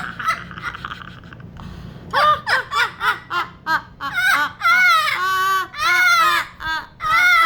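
Pet parrot calling: a quick string of loud, high calls that arch up and down in pitch, starting about two seconds in, with a few longer held calls near the end.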